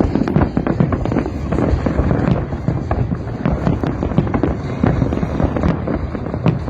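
Fireworks going off in a rapid, continuous barrage: overlapping bangs and crackling over a steady low rumble.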